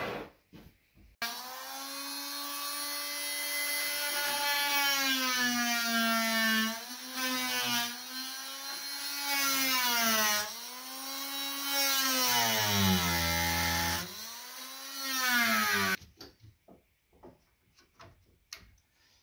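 Oscillating multi-tool with a plunge blade cutting into a wooden door jamb. Its motor whine starts about a second in and dips and recovers in pitch several times as the blade meets the wood. It cuts out briefly, runs again, then stops, followed by a few light knocks.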